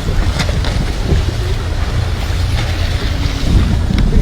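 Wind buffeting the microphone aboard a boat at sea, a steady low rumble with a couple of short knocks.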